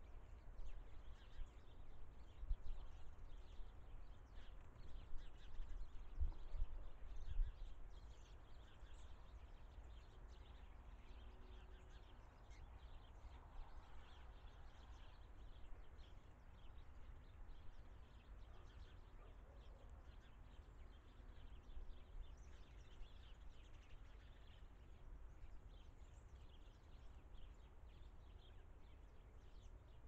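Faint outdoor ambience at a bird feeder: scattered, faint high bird chirps over a low rumble that is stronger and gustier in the first several seconds.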